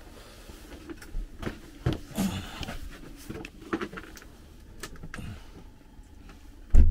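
Scattered clicks, knocks and rustles of a handheld camera being handled and moved in a small wooden hut, ending with a loud low bump on the microphone near the end.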